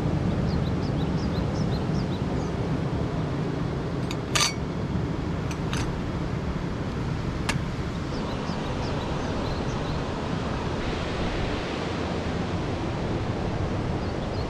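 Steady surf and wind noise. A sharp metallic clink about four seconds in, with lighter clinks near six and seven and a half seconds, from stainless-steel percolator parts being fitted together.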